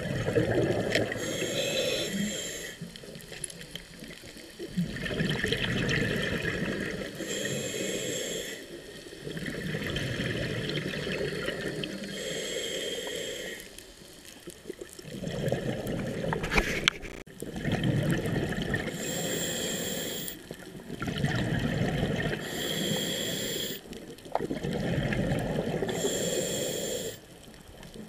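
Scuba diver breathing through a regulator underwater: a short hissing inhale alternating with a longer gush of bubbling exhaust, a breath every four to five seconds.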